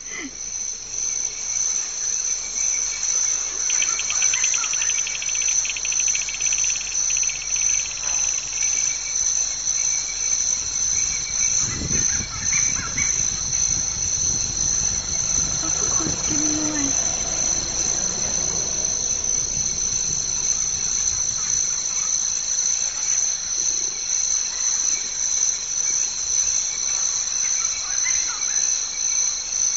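Shrill insect chorus, a steady high-pitched ringing, with a faster trill a few seconds in and a low rumble around the middle.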